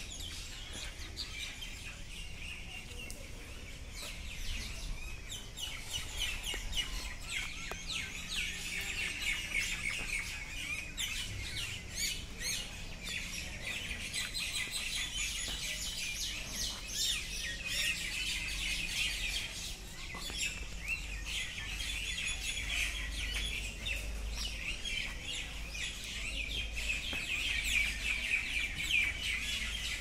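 Many birds chirping continuously in a dense chorus of rapid, overlapping calls, over a steady low rumble.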